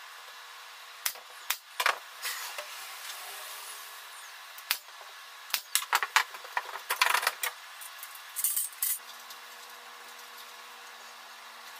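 A pneumatic brad nailer firing into the corners of a glued plywood frame: sharp single shots and short clattery bunches, mixed with bar clamps and tools being handled.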